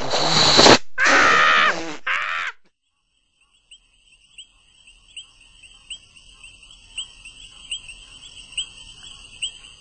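A loud harsh rushing burst, then a loud screaming voice that breaks off about two and a half seconds in. After a short silence, crickets chirp steadily, about two chirps a second.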